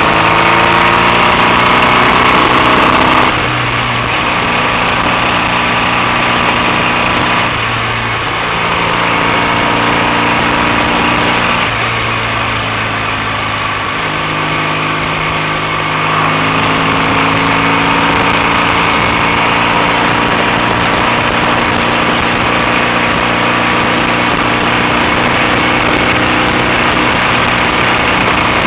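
BSA A65 650 cc parallel-twin engine running under way on the road. The revs climb, drop sharply about three seconds in, then shift up and down several more times.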